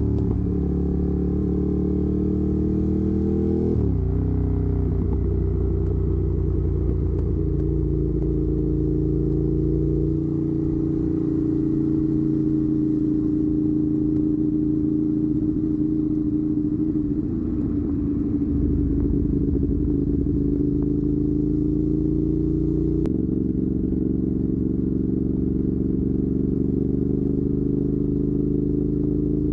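Ducati Monster 821's V-twin engine through a Termignoni exhaust, under way. The revs climb over the first few seconds and drop sharply about four seconds in, like a gear change. It then runs at fairly steady revs, with another step in pitch near the end.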